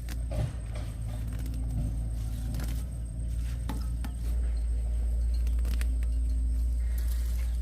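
A steady low rumble, a little louder from about halfway through, with a few light clicks over it.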